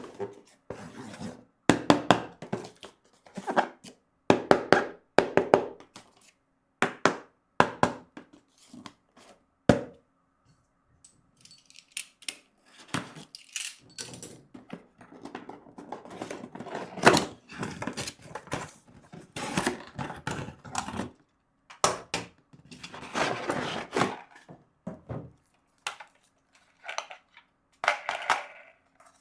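Toy and packaging being handled: irregular knocks, clicks and crinkly rustles of plastic and cardboard, with a faint steady hum underneath.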